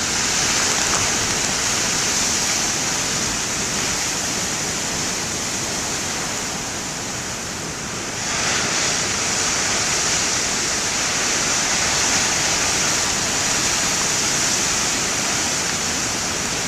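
Large ocean waves breaking: a steady rush of surf that eases slightly and then swells again about eight seconds in as another wave breaks.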